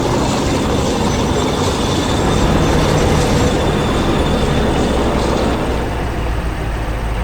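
Heavy machinery running: a steady low rumble under dense, continuous rattling and clatter, which stops abruptly just after the end.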